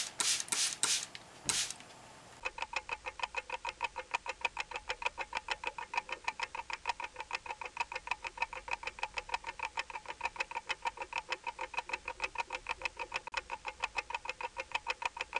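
A few quick squirts from a trigger spray bottle. Then a clock-ticking sound effect is edited in: a fast, even ticking of about five ticks a second that carries on without a break.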